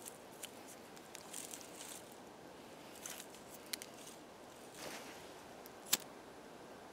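Small dry twigs and bark rustling and clicking as they are laid onto a wire grill, then a single sharp click just before the end as a lighter is struck.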